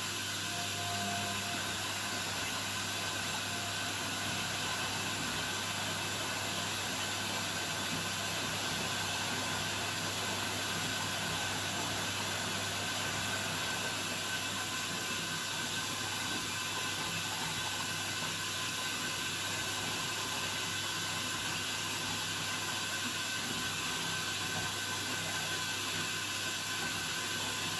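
Beko WML 51211 EL+ front-loading washing machine running, a steady hum with an even hiss over it.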